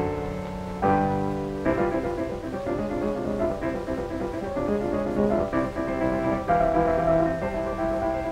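Instrumental title music from a 1930 sound film's soundtrack, with piano prominent. Held chords change every second or so at first, then give way to a busier passage of quicker notes.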